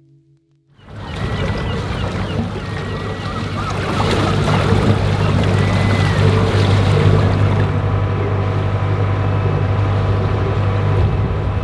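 A sailing yacht's engine running steadily as the boat motors through calm water, with water and wind noise over it. It fades in about a second in and gets louder at about four seconds.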